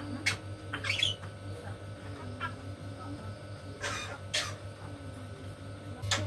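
Pet jalak starling giving a few short, scattered harsh calls and clicks, one of them a quick rising squeak about a second in, over a low steady hum.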